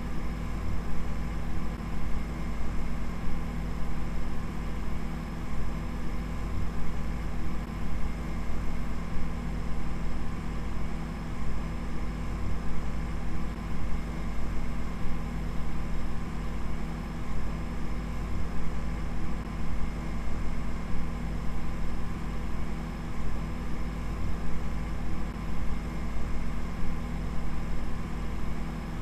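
A steady low rumbling drone with several held hum tones above it, unchanging throughout.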